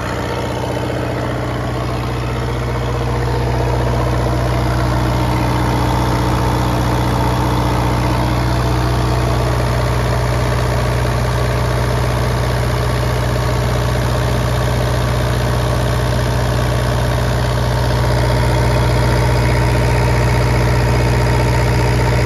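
Kubota diesel engine of a 15 kW generator set running steadily at constant speed under test. It gets a little louder about three seconds in.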